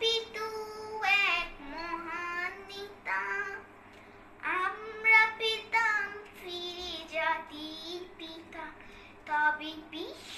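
A young girl singing a Bengali song solo, with no accompaniment, in long held phrases separated by short pauses.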